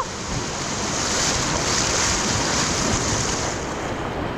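Steady rushing of fast river water, with wind buffeting the microphone.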